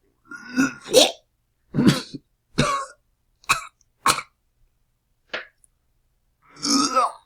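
A person retching and gagging in a series of about eight short, separate heaves, with a longer, louder heave near the end.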